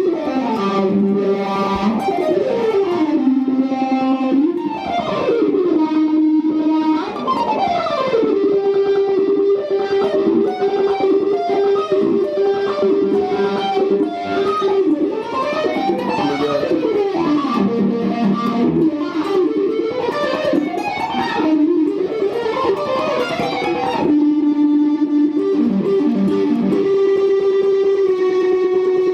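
Electric guitar playing a melodic lead: quick runs of notes climbing and falling, broken by long held notes.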